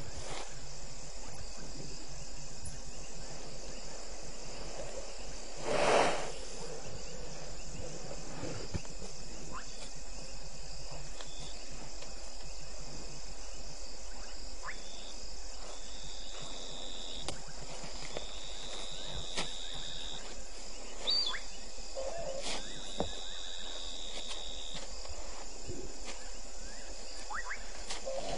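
Night insect chorus of crickets and other insects: a steady high, finely pulsing chirring, with three long, even trills of a few seconds each in the second half. A brief loud noise burst about six seconds in stands out above the chorus.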